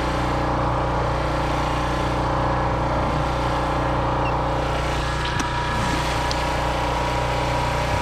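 A boat engine running steadily at an even pitch, a constant drone with no change in speed. A couple of faint light clicks come about five and six seconds in.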